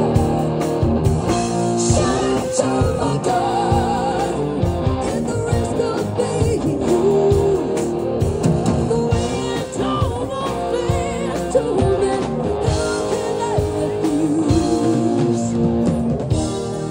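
Live rock band playing with electric guitars, bass and drums, and a woman's lead vocal over it.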